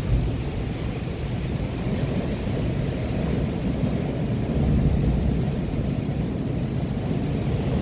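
Wind buffeting the microphone outdoors: a steady low rumble that swells a little about halfway through.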